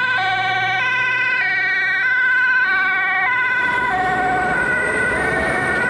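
Two-tone emergency siren of a fire brigade mobile crane truck, switching between a high and a low note about every two-thirds of a second, each note with a fast wobble. The notes drop slightly in pitch about four seconds in as the truck passes.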